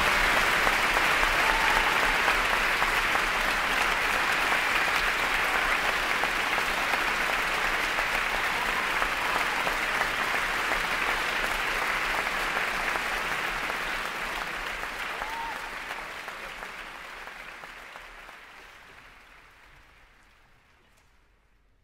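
Audience applauding steadily, then fading away to near silence over the last several seconds.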